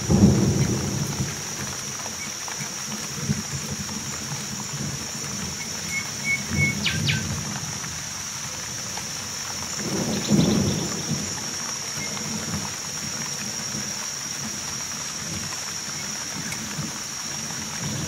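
Heavy tropical rain pouring steadily, with thunder rolling in three times: loudest right at the start, again about six or seven seconds in, and once more about ten seconds in.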